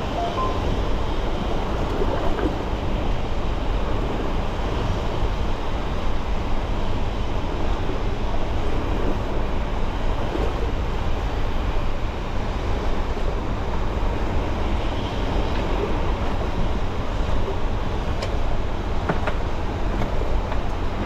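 Hangkai 12 hp outboard motor on a small boat running steadily, mixed with rushing water from a strong outflow current.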